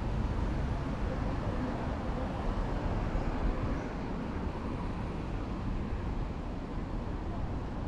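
Steady outdoor street ambience: an even wash of noise with a low rumble, like road traffic, and no distinct events.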